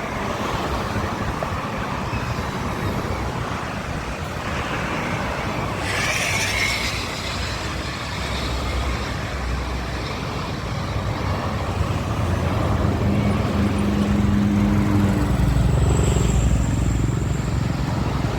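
Road traffic passing steadily. In the second half a heavy vehicle's engine rumble grows louder as it comes by, with a steady low drone for a couple of seconds.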